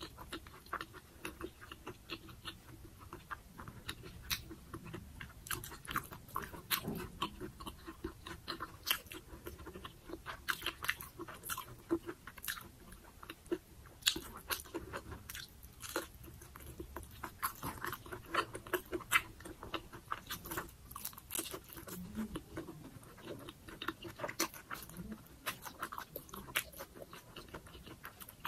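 Close-miked chewing of a crispy fried dynamite lumpia, a chili pepper wrapped in spring-roll wrapper: steady, irregular crunching and crackling of the wrapper between the teeth, with wet mouth sounds.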